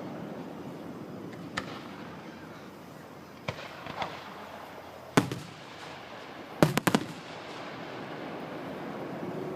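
Fireworks going off: scattered single bangs, the sharpest about five seconds in, then a quick cluster of several bangs near seven seconds, over steady background noise.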